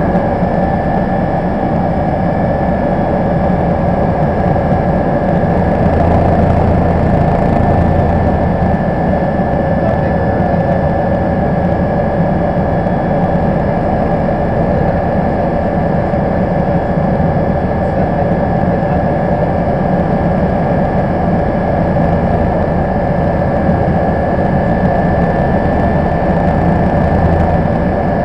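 MBB Bo 105 helicopter in flight, heard from inside the cabin: a steady drone from its twin turboshaft engines, rotor and transmission, with a constant high whine over a low hum.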